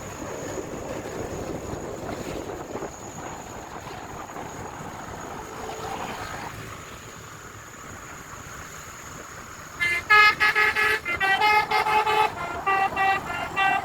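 A steady background noise for about ten seconds, then a Basuri telolet multi-tone horn starts playing a quick tune of short, loud horn notes that changes pitch from note to note.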